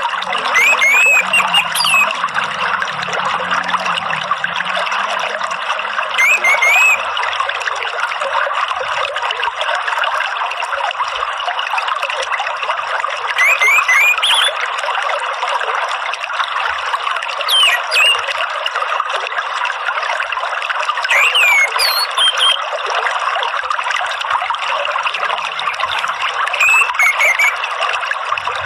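Water trickling and splashing steadily, with an orange-headed thrush giving short whistled phrases of quick rising and falling notes, six times, a few seconds apart.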